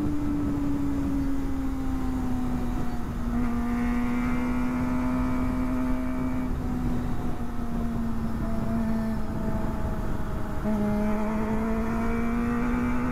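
Kawasaki Ninja ZX-25R's 250 cc four-cylinder engine running at steady high revs under way, its note sagging slowly, then dropping and climbing again near the end. Heavy wind noise on the microphone runs underneath.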